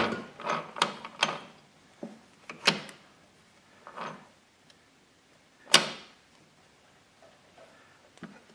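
Rebuilt Maico 440 dirt-bike transmission being turned and shifted by hand on the bench: the shift mechanism and gears give a series of sharp metallic clicks and clunks as it downshifts through the gears. The loudest clunk comes about six seconds in, and then it falls quiet.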